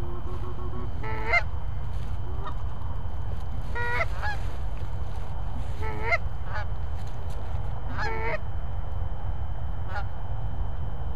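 Canada goose honks, one call about every two seconds, some loud and some faint, over a steady low rumble.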